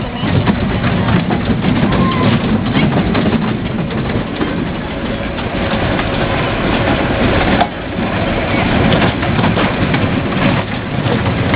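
Kiddie roller coaster train running on its steel track close by, a continuous rumble with a dense rattle of clicks from the wheels and cars.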